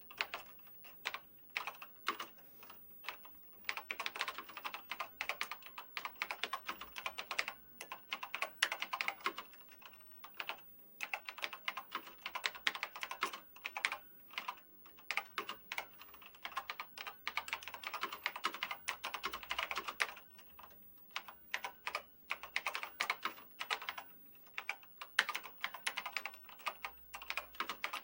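Typing on a telex keyboard: rapid runs of key clicks in bursts, broken by short pauses every few seconds.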